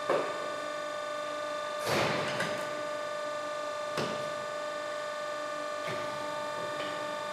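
Steel tyre lever knocking and scraping against an alloy rim and tyre bead as it is worked in to lever the bead over the rim, a handful of separate knocks with the loudest, scraping one about two seconds in. A steady hum runs underneath.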